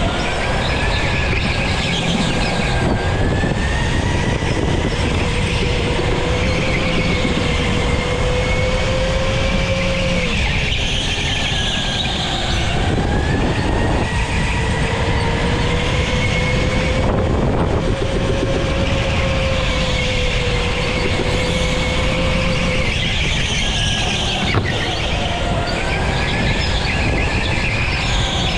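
Go-kart running at speed, its motor's whine rising and falling in pitch several times as it accelerates and slows through corners, over a steady rumble of tyre and running noise.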